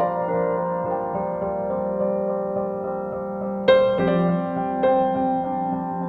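Slow, soft piano music with long held notes; a fresh chord is struck a little past halfway, followed by a couple of single notes.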